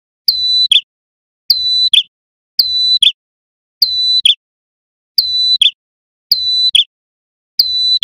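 Male ashy tailorbird (red-headed prenjak) calling: a loud, buzzy note held about half a second and ending in a quick lower flick, repeated about once a second, seven times.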